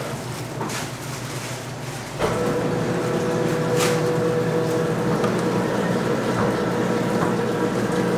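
Steady machine hum and noise of a food-stall kitchen, stepping louder about two seconds in as a steady tone comes in.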